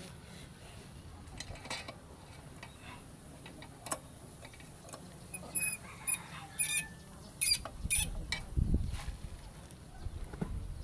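Metal hand tools clicking and clinking against the bolts of a scooter's CVT cover as they are tightened with a T-handle wrench. The sharp clicks, several with a short metallic ring, bunch up in the middle, followed by a low rumble of handling near the end.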